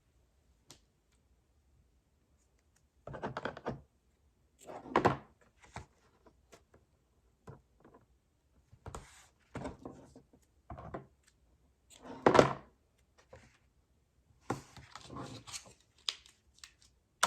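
Handling of cardstock and paper on a craft table: a series of short, irregular thuds and rustles as pieces are picked up, folded and set down.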